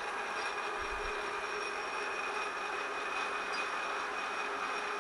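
Metal lathe running steadily at about 250 RPM under power feed, a scissor-type knurling tool rolling a knurl into the turning workpiece, with a steady high whine.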